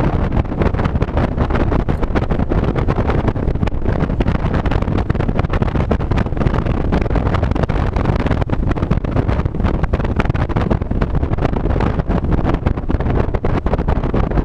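Porsche 911 at speed on a race track, heard from inside the cabin: a dense, steady rumble of engine and road noise with wind buffeting on the camera microphone.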